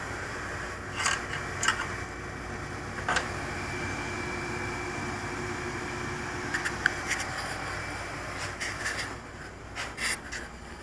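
HobbyKing Nova quadcopter's small brushless motors running with a steady whir, with scattered clicks. A faint steady whine comes in for a few seconds in the middle.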